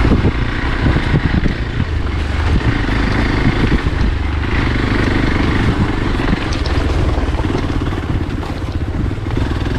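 Motorcycle engine running steadily at low speed while riding over a rocky dirt trail, with scattered clicks and knocks from stones under the tyres.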